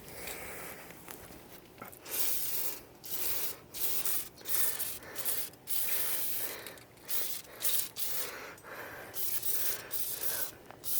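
Aerosol chain lube (Silkolene Pro Chain) hissing from the can in a series of short sprays onto a dry, neglected ATV drive chain.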